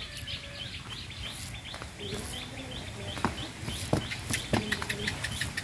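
Small birds chirping repeatedly, two to three short chirps a second, with a quicker run of chirps near the end. A few low clucks from hens and a few sharp clicks come in partway through.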